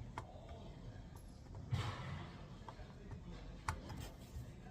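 A few sharp clicks and a brief rustle as hands and tools work on a microwave control board while a part is desoldered.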